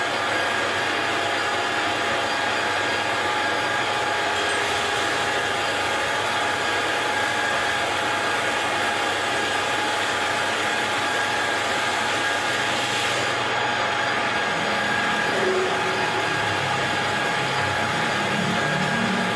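Metal lathe running steadily, its motor and gearing giving a constant whine over an even machine noise, with a lower hum coming in near the end.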